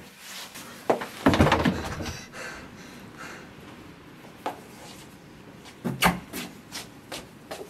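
Rubbing and scuffing, loudest about a second in, followed by a few sharp knocks about six seconds in.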